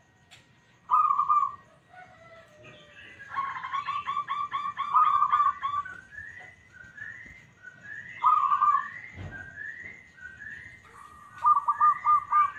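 Zebra dove (perkutut) cooing, some coos long and single, others in rapid stuttering runs. Another bird's short rising call repeats steadily behind it.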